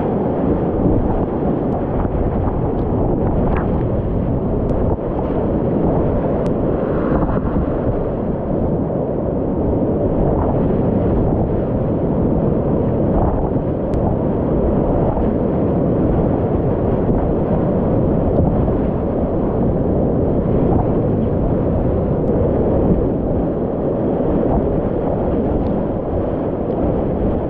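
Steady rushing of whitewater rapids, heard from inside a kayak running them.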